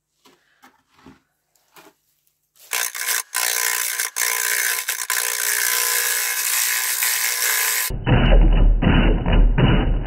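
A few faint taps and rubs, then a wood lathe running while a hollowing tool cuts inside a spinning alder vessel: a steady, rough scraping noise with a ringing hum. About eight seconds in, this gives way abruptly to music with a heavy drum beat.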